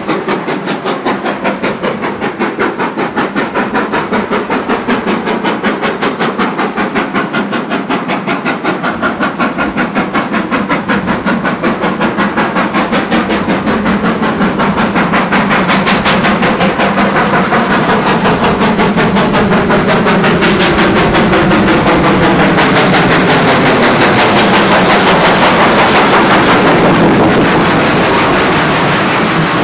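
Steam locomotive hauling a passenger train, its exhaust beating hard in quick, even succession. It grows louder as it approaches and passes close by, and near the end the coaches clatter past over the rails.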